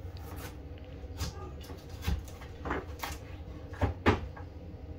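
Kitchen knife cutting raw potatoes into wedges, the blade knocking on a wooden cutting board at irregular intervals, about seven knocks.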